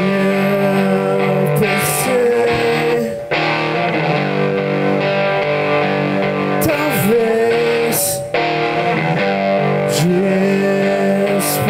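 Live grunge rock band playing: electric guitar, bass guitar and drum kit, with a male lead singer's vocals over it and cymbal crashes every second or few.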